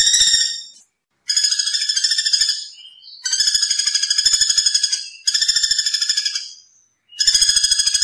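Common flameback woodpecker (pelatuk bawang) calling: a rapid, high rattling trill repeated in bouts of about a second and a half, with short pauses between them.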